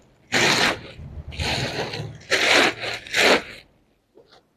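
A fabric bag being handled: about five bursts of rustling and scraping, which stop about three-quarters of the way through.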